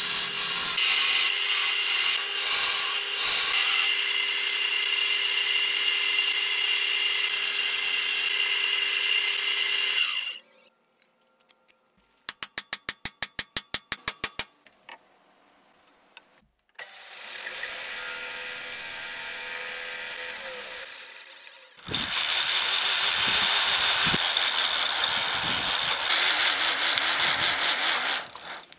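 Wood lathe running while a chisel cuts a spinning ash handle: a steady motor hum under harsh scraping from the tool, for about ten seconds until it stops. After a short pause comes a quick run of even clicks, about eight a second for some two seconds, then two further stretches of steady machine noise.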